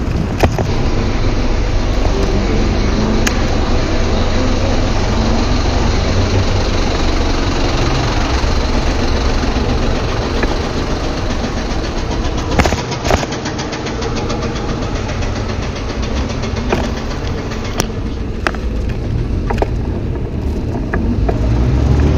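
Steady rush of riding noise on a moving bicycle, mixed with the low hum of motor traffic, with a few sharp knocks here and there.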